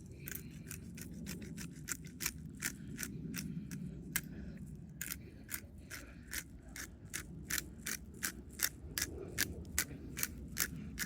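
Pepper mill grinding black pepper: a long run of sharp, irregular clicks, about three or four a second.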